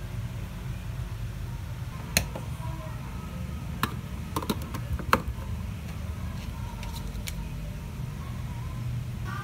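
Sharp clicks and taps from a USB power adapter being pushed into a wall outlet, a cluster of them about four to five seconds in with one more about two seconds in, over a steady low background hum.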